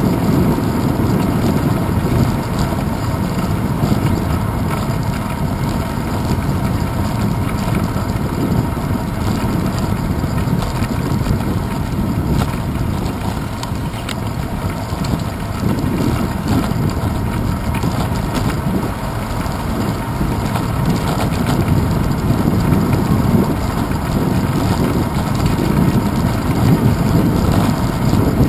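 Steady wind rushing over a handlebar-mounted camera's microphone on a moving bicycle, mixed with a low rumble from the tyres and handlebars over hexagonal paving stones.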